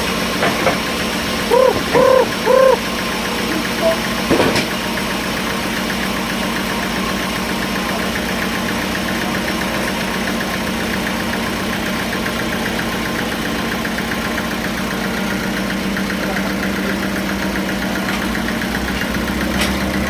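Sawmill engine running steadily at an even drone. Three short hoot-like tones come about two seconds in, and a single sharp knock about four and a half seconds in.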